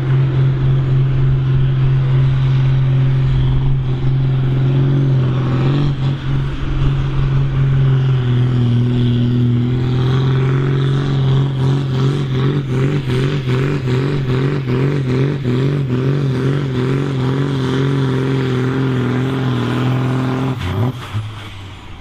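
John Deere tractor's diesel engine running hard under load on a tractor pull, a steady full-throttle note while it drags the weight sledge. The pitch sags slightly about eight seconds in, and the engine drops off sharply near the end as the pull finishes.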